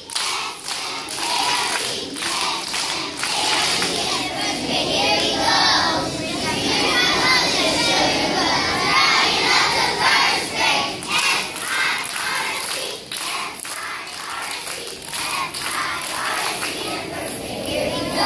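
A large group of kindergarten children singing a song together.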